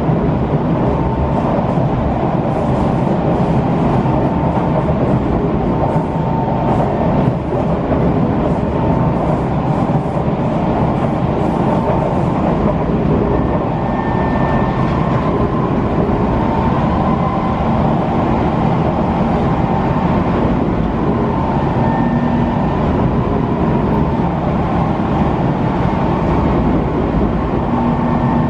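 Inside an SMRT C151 metro train car running along the line: the steady rumble and rattle of the car and its wheels on the rails, with faint short tones coming and going.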